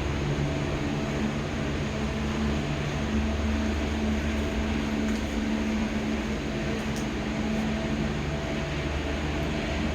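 Steady low hum of a vehicle in motion, heard from inside: engine and road noise with a few even low tones.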